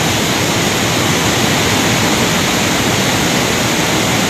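Steady, loud rush of muddy floodwater from an overflowing river surging through the channel.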